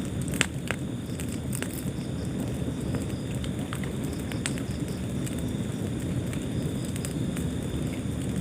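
Wood fire burning in a fireplace: a steady low rumble of flames with scattered sharp crackles and pops. The loudest pop comes about half a second in.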